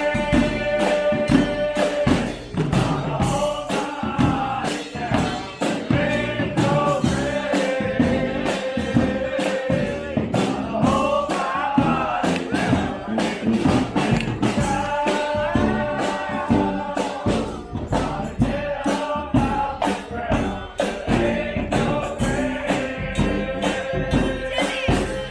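Live street band music: horns play a melody of held notes in a repeating phrase over steady drumming.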